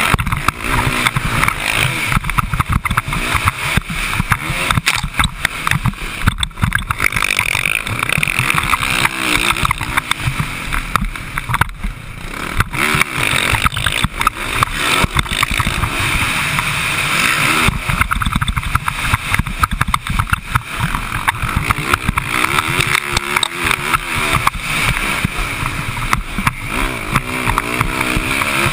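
Dirt bike engine running hard and revving up and down through gear changes and over jumps, under heavy wind buffeting on the camera microphone.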